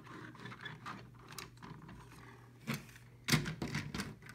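Plastic HO scale freight cars being handled by hand on plastic roadbed track: light clicks and taps of car bodies, wheels and couplers, with a quick run of clicks near the end as a hopper is pushed up to couple with a boxcar.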